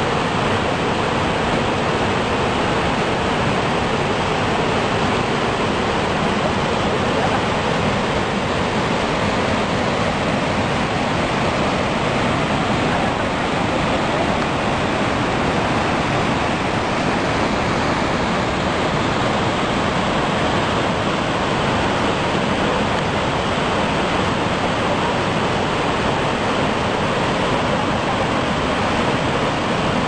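Steady, loud rushing of a large two-tiered waterfall, about 50 m high, crashing down onto the rocks below.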